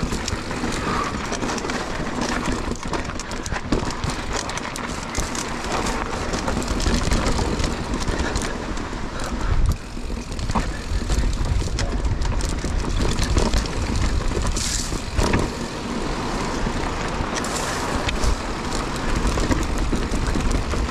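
Mountain bike riding over rough singletrack: tyres rolling and crunching over dirt and rocks, with frequent clicks and rattles from the bike, under a steady low rumble of wind on the microphone.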